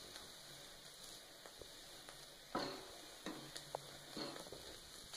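Stuffed paratha roasting on a hot iron tawa with a faint sizzle. A steel spatula scrapes and taps against the paratha and griddle a few times in the second half.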